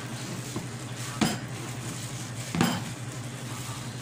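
Two knocks of a mixing bowl, about a second and a half apart, as hands knead a ground-meat mixture in it, over a steady low hum.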